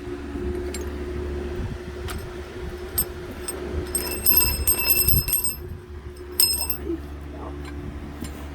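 Shop sounds during an engine teardown: a few sharp metallic clicks of tools and parts over a steady low hum, with a high-pitched steady tone sounding twice in the middle, once for about a second and once briefly.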